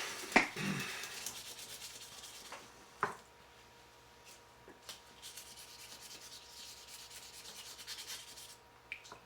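Plastic knife scale being wet-sanded by hand on fine 1500-grit wet-and-dry sandpaper, a run of quick back-and-forth rubbing strokes. There is a sharp click just after the start and a knock about three seconds in.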